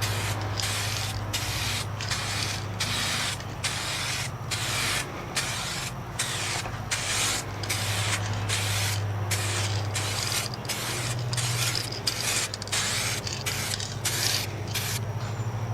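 Aerosol can of 2K clear coat spraying in short bursts, about two a second, with brief breaks between, as a coat is laid onto a car wheel rim.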